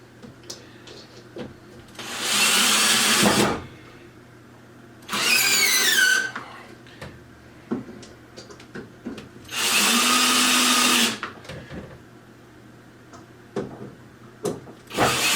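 Power drill driving screws into particleboard desk panels in three short runs of about a second each, with a fourth starting near the end. In the second run the motor's whine falls in pitch as it slows. Small clicks and handling knocks come between the runs.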